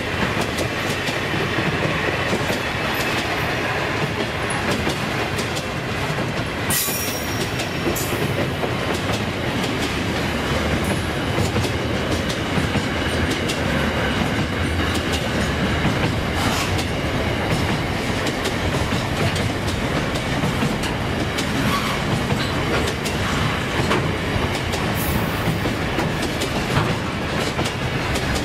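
Container wagons of a freight train rolling past: a steady rolling noise of steel wheels on rail, with many short clicks and clacks as the wheels pass over the rail joints.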